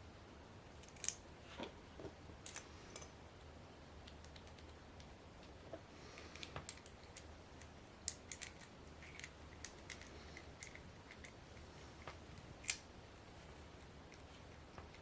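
Faint, scattered small clicks and taps of an American 5200 padlock's parts being handled and worked by hand, in small clusters, the sharpest about twelve and a half seconds in.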